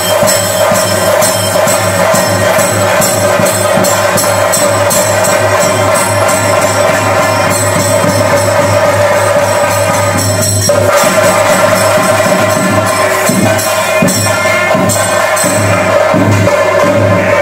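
Loud ritual percussion music: rapid, even strokes of drums and jingling metal over a steady held tone, which breaks off briefly about ten seconds in.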